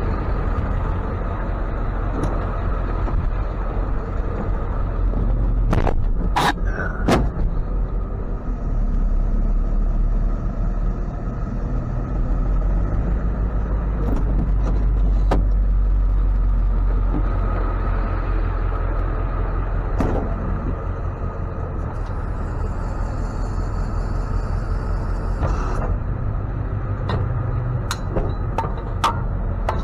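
A truck engine running with a steady low rumble, with a few sharp clicks or knocks about six and seven seconds in and again around twenty seconds.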